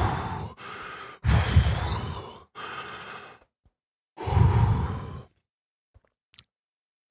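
A man breathing deeply and hard into a close microphone, three loud breaths with quieter ones between: filling his lungs before saying a word as many times as he can in one breath.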